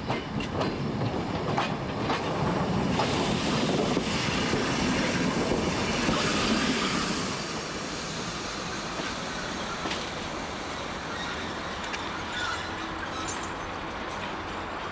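Train rolling slowly across station points during shunting: wheels squealing and clicking over the rail joints and switches, loudest in the first seven seconds or so, then quieter.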